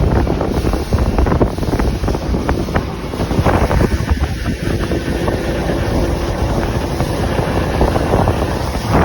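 Wind buffeting the microphone on a boat under way at speed, over the steady noise of the boat's motor and the hull on the water.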